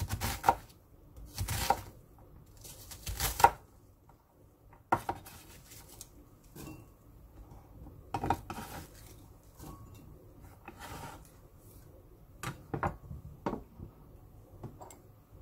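Chef's knife cutting onion on a wooden cutting board: a handful of separate sharp knife strikes on the board, the loudest about three and a half seconds in, with quieter knocks and scrapes between them as the diced onion is gathered.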